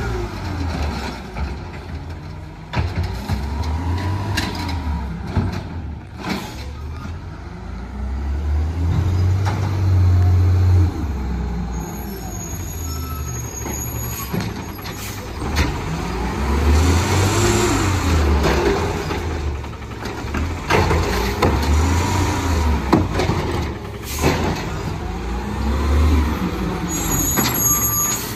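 CNG engine of a Peterbilt 320 garbage truck revving hard again and again, its pitch rising and falling with each rev. A few short, sharp hisses or clicks, such as air-brake releases, come in between.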